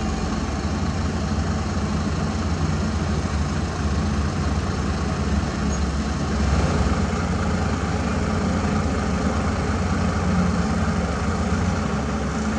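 Diesel engine of an Isuzu Giga FVZ self-loader truck running steadily, powering the hydraulic jack legs as they lift the truck's front wheels off the ground.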